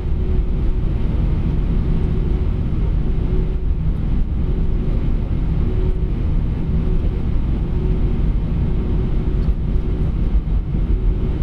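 Cabin noise inside an Airbus A319 on the ground after landing: a steady low rumble from the engines at idle and the moving aircraft, with a faint steady hum on top that fades in and out.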